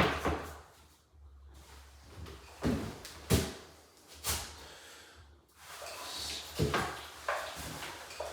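Several separate knocks and clunks, about six in all, from MDF skirting boards being handled and fitted.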